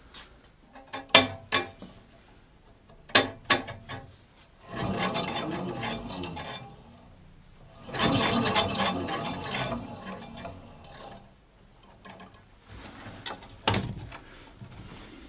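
Hands working on a small bandsaw's blade and guides: a few sharp clicks and knocks, and two longer stretches of rubbing and scraping, the louder one about halfway through.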